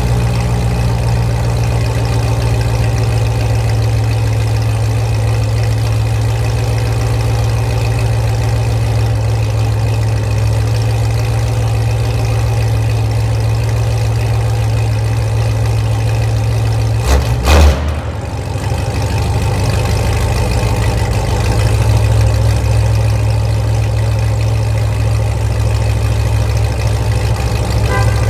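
Corvette's 6.2-litre V8 idling steadily through a loud exhaust, echoing in a concrete parking garage. About 17 seconds in there is a brief sharp burst, and the idle dips for a moment before settling back.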